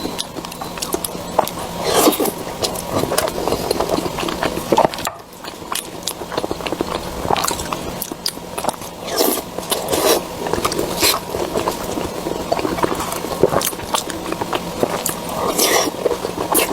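Close-miked eating: repeated bites and wet chewing, full of short sharp clicks and smacks.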